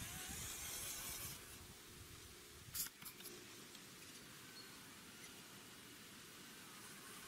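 Faint hiss of a small RC crawler's electric motor and tyres on wet dirt for the first second or so, then a single sharp click just under three seconds in, followed by faint steady background hiss.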